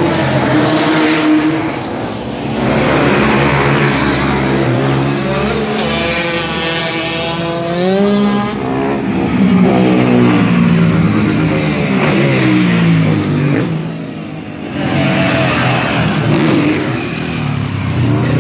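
Off-road motorbike engines revving, the pitch climbing and falling again and again as the bikes are ridden past on the back wheel, with more than one engine heard at once. The sound eases off briefly about two seconds in and again around fourteen seconds.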